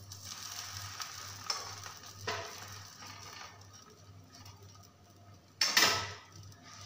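Ghee sizzling on a hot tawa as a bread sandwich is laid on it and pressed down. There are a few light taps, and a short, louder burst of noise about five and a half seconds in.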